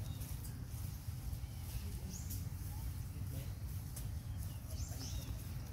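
Outdoor ambience: a steady low rumble with a few short, high-pitched animal chirps, about two seconds in and again near the end.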